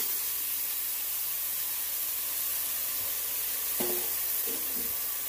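Chopped onion, celery and red bell pepper sizzling in hot oil in a stainless steel sauté pan, a steady hiss, with a metal spoon stirring them at the start.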